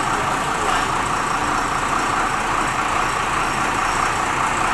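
Steady, unbroken drone of a truck engine idling.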